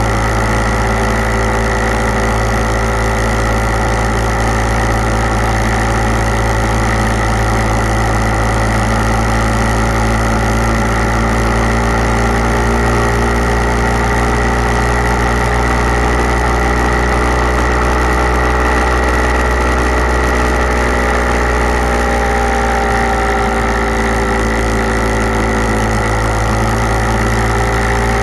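Engine of the camera-carrying motorcycle running steadily at highway cruising speed, its pitch drifting slightly up and down, under a constant rush of wind and road noise.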